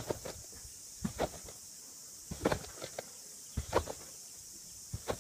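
Trampoline bounces: each landing gives a soft thud of the mat and springs, five landings a little over a second apart.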